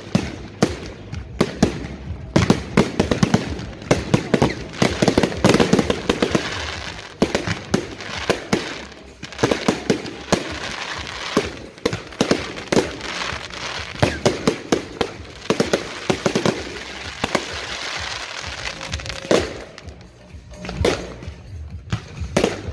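Aerial fireworks going off in rapid succession: a dense barrage of bangs and crackling shell bursts, thinning out to a few separate bangs near the end.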